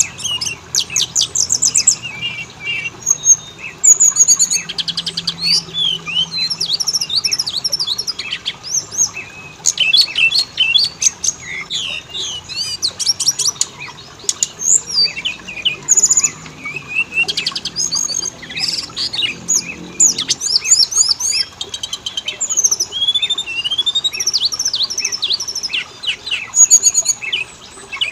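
Oriental magpie-robin (kacer) singing a long, varied song of whistles, slurred notes and rapid trills that runs without a break. It is the kind of song recording played to captive magpie-robins to make them sing and copy.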